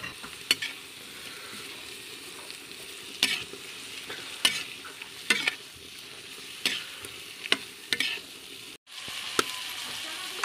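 Sliced onions and green chillies sizzling in oil in a metal kadai, with a metal spatula scraping and clinking against the pan about once a second as they are stirred. The sound cuts out for a moment near the end, then the sizzle comes back louder.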